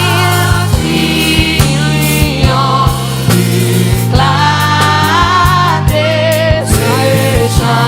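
Gospel worship music: a group of voices singing a slow French hymn with vibrato, backed by a band with steady bass notes and regular drum hits.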